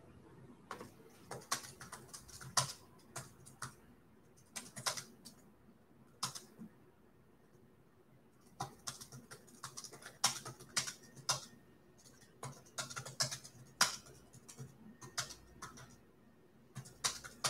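Typing on a computer keyboard: short irregular runs of keystrokes with brief pauses between them, the longest pause a little after the middle.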